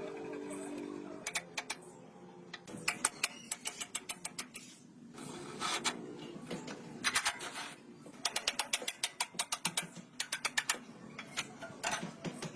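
Hand tools working on motorcycle parts: bursts of sharp clicks and taps, in places several a second.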